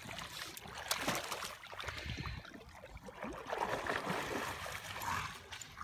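Water splashing and sloshing as a dog swims and wades through shallow lake water, dragging a large driftwood log in her mouth, with a few sharper splashes.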